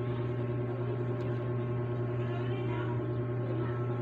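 Steady low electrical hum with evenly spaced overtones, unchanging in pitch and level.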